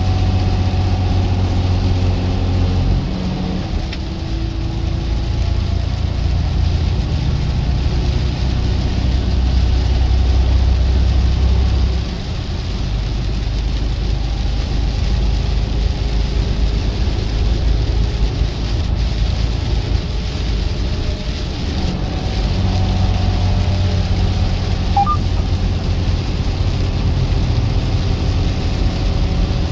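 Heavy truck's diesel engine running steadily under a haze of road noise, its note shifting a few times.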